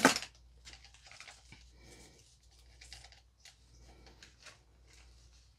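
Hands handling the kit's packaging: a short loud rustle right at the start, then faint scattered rustles and light clicks.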